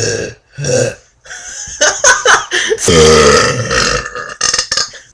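Teenage boys belching deliberately: two short burps at the start, then a long, loud drawn-out belch about three seconds in, with scattered clicks near the end.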